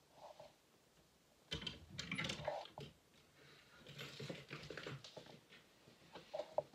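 Small hard objects being rummaged through on a dresser top: irregular clicks and clatters mixed with rustling, in one spell about a second and a half in and another around four seconds.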